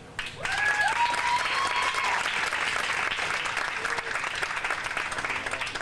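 Audience applauding, a dense steady clapping, with a brief cheer from the crowd about half a second in.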